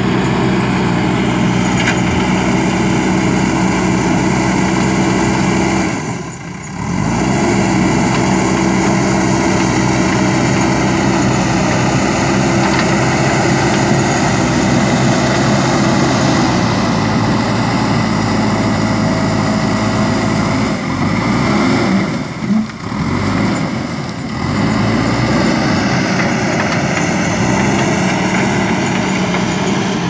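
JCB 3DX backhoe loader's diesel engine running steadily under load as the machine pushes and carries dirt with its front bucket. The sound dips briefly twice, about six seconds in and again around twenty-two seconds.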